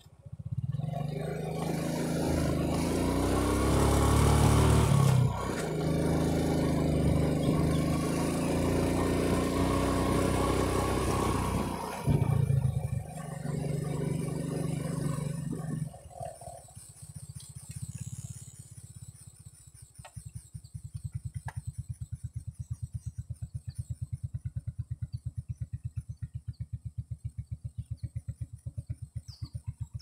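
A vehicle engine running, its pitch rising and falling for about the first sixteen seconds, then settling from about twenty seconds in to an idle with a fast, even low putter.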